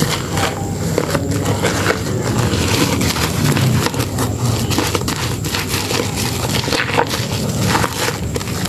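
Hands squeezing and kneading thick soap lather and a soaked sponge in a plastic basin: continuous wet squishing with fine crackling of the foam.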